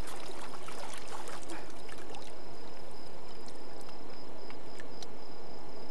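River water splashing and dripping around a big mahseer held in the shallows, several small splashes in the first two seconds, over a steady rush of water. A thin, constant high insect trill runs throughout.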